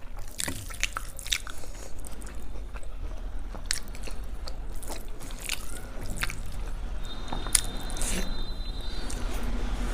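Close-miked mouth sounds of someone biting and chewing baigan bhaja (fried eggplant slices), with many small irregular clicks.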